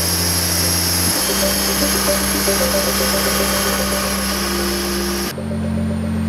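Steady, loud running drone of a Jenbacher biogas engine driving its generator, a deep hum under a hiss. The hiss drops away abruptly about five seconds in.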